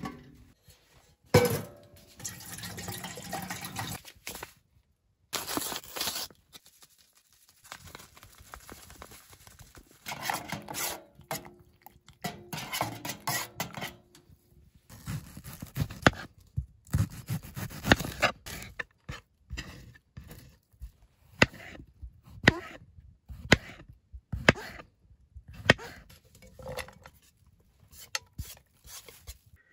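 Camp cookware being handled: knocks and clinks of a sheet-metal box oven and metal pots, a spoon stirring in a metal pot, and sliced onions and mushrooms scraped from a wooden cutting board into a pan. A series of short separate knocks, clinks and scrapes with brief quiet gaps between them.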